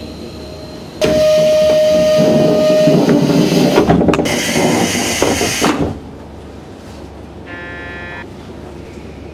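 Passenger train door at a station stop. A steady tone sounds for about two seconds over a loud rush of air and rattling, which lasts for several seconds and then cuts off. A short electronic beep follows near the end.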